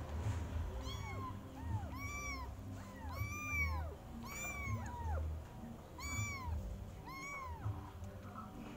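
Young kittens meowing again and again: thin, high calls that rise and fall, about one a second. At times two calls overlap at different pitches, as more than one kitten cries at once.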